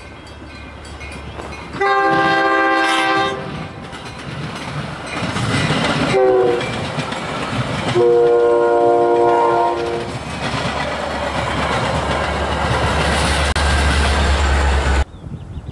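Metra commuter train sounding its horn as it passes: a long blast, a short one, then another long one, over the clatter of the bilevel cars on the rails. The low rumble of the diesel locomotive pushing at the rear grows louder near the end, then the sound cuts off suddenly.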